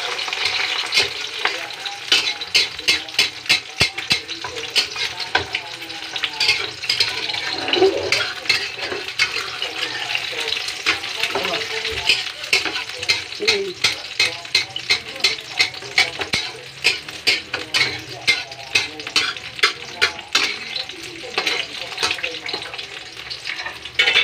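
Two eggs frying in oil in an aluminium wok: a steady sizzle with frequent sharp pops and ticks, and a spatula scraping against the wok.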